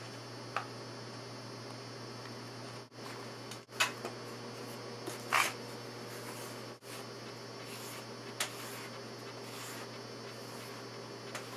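Steady electrical hum and fan-like background noise, with a few short knocks and clicks as the wooden adjustable mold frame is handled on the worktable. The loudest knock comes about halfway through.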